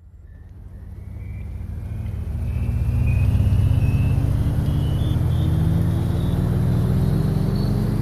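Car engine running and slowly gaining speed, its hum rising gradually in pitch, with a thin whine climbing above it. It swells in over the first couple of seconds, then holds steady and loud.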